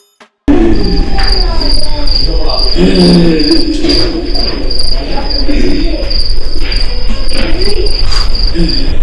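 Cricket chirping, starting abruptly about half a second in: a steady high-pitched pulsing chirp repeating several times a second, over a low rumble and wavering lower tones.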